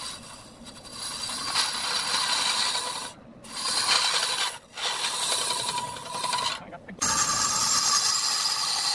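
A cloth pad pressed against a large wooden piece spinning on a lathe: a steady rasping rub over the running lathe, dropping away briefly three times as the pressure comes off.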